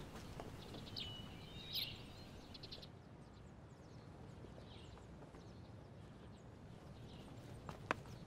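Faint outdoor ambience: a steady low background hiss with a few short bird chirps about a second or two in. A single sharp click comes near the end.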